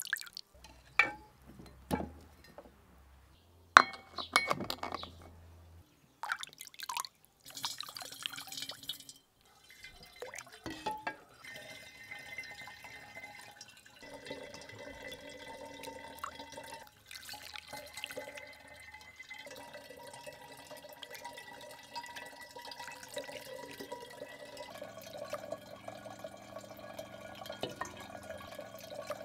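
Clear liquid dripping from a glass bottle into a clay bowl, with a few sharp clinks of glass and a metal ladle in the first seconds. Then liquid is ladled through a funnel into a glass bottle, trickling steadily for the second half.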